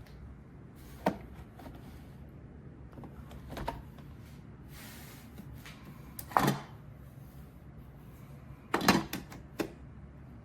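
A handful of short clicks and knocks a few seconds apart, the loudest a quick rattle of several near the end, over a low steady hum.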